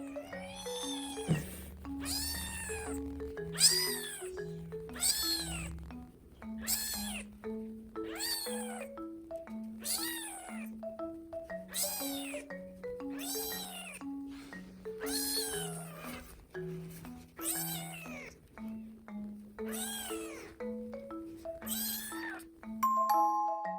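A newborn kitten mewing over and over, about fifteen high cries a little over a second apart, each rising and then falling in pitch. Background marimba-style music plays underneath.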